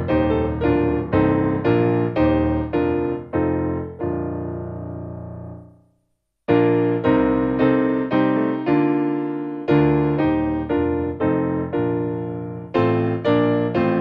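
Solo piano music, notes and chords struck about twice a second, each ringing and fading. About four seconds in a chord is held and dies away into a brief silence, then the piano starts up again.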